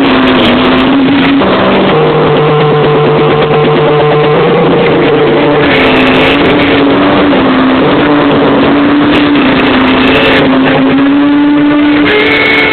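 Loud live electronic music: held droning tones that step up and down in pitch every few seconds over a dense, steady wash of sound.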